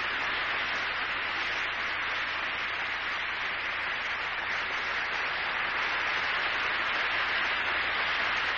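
Theatre audience applauding steadily: a dense, even clapping that holds at one level at the end of a stage performance.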